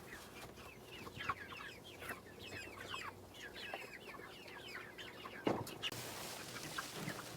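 Flock of meat chickens clucking and peeping, many short, quick calls overlapping, with one knock about five and a half seconds in.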